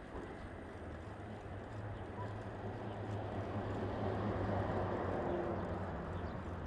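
A motor vehicle passing close by: a low hum and tyre noise that swell to a peak about four to five seconds in, then fade.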